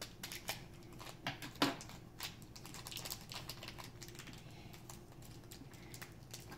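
Irregular crinkling and clicking of a small plastic toy wrapper being opened and crumpled by hand, with a few sharper clicks in the first two seconds.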